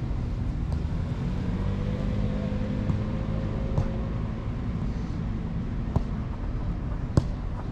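A futsal ball kicked on artificial turf: sharp knocks about four, six and seven seconds in, the last the loudest, over a steady low rumble.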